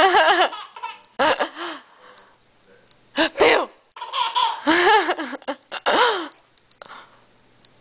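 A baby laughing hard at peek-a-boo, in several high-pitched bursts of belly laughter with short pauses between them.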